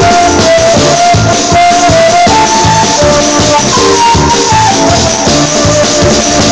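Lively music with a steady beat and a melody line that steps up and down.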